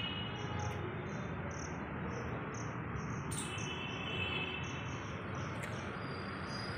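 Cricket chirping in a steady rhythm, about two to three short high chirps a second, over a steady outdoor hiss. About three and a half seconds in there is a brief scratchy noise.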